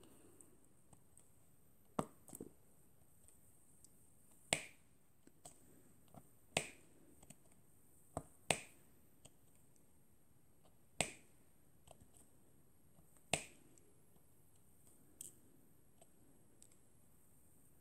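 Diamond painting drill pen setting square drills onto the sticky canvas: sharp clicks every couple of seconds, some in quick pairs.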